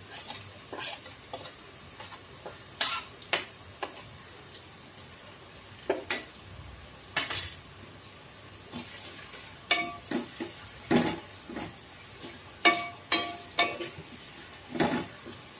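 Sliced onions frying in a metal pot with salt added to soften them, a steady low sizzle under them. A spatula scrapes and knocks against the pot as they are stirred, many knocks in the second half, several of them ringing briefly.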